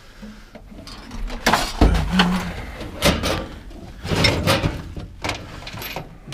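Tools and objects being rummaged through and shifted by hand: a run of irregular knocks and clanks, with a heavy thump about two seconds in.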